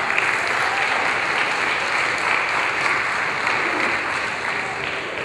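Audience applauding steadily, dying down slightly near the end.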